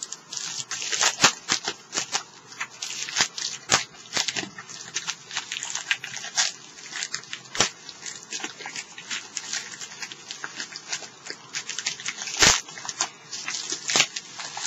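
Packaging being handled and opened: a run of crinkling, rustling and sharp crackles, with one louder knock or snap near the end.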